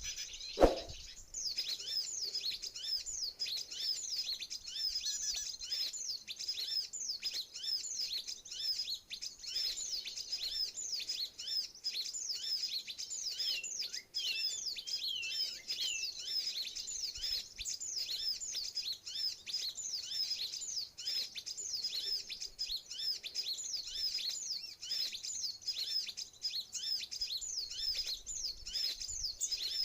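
Small birds chirping continuously: rapid, high-pitched, downward-sweeping chirps, several a second, with a few lower slurred notes around the middle. A single sharp knock sounds less than a second in.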